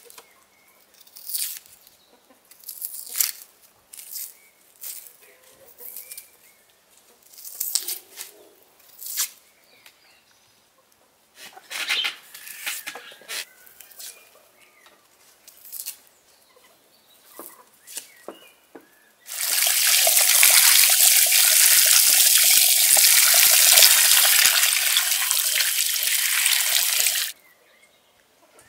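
Dry onion skins crackling and tearing in short, irregular bursts as onions are peeled with a knife. About two-thirds of the way through, a loud, steady rushing noise starts, runs for about eight seconds and cuts off suddenly.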